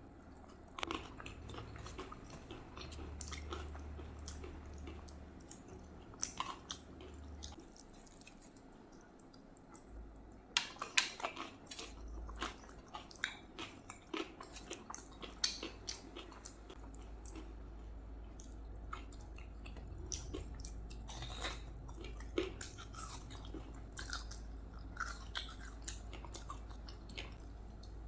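A person eating rice and curry close to the microphone: wet chewing with irregular mouth clicks and smacks, a louder cluster of them about eleven seconds in.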